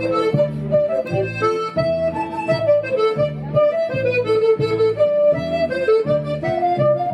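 Accordion playing a Breton folk dance tune, a melody over a steady beat of bass chords.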